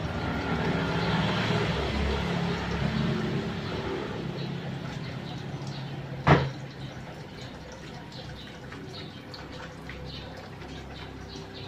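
Water splashing and dripping as a wet dog is scrubbed and rinsed by hand. A low rumble runs through the first few seconds, and a single sharp knock sounds about six seconds in.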